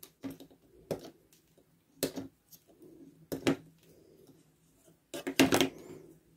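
Flush cutters snipping excess component leads off a soldered stripboard: a series of sharp clicks a second or so apart, the loudest cluster about five seconds in.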